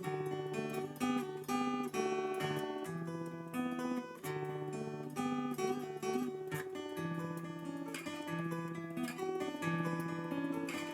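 Steel-string acoustic guitar, a Morris W-100D, fingerpicked with a thumb pick and finger picks: a melody of plucked notes over a repeating bass note.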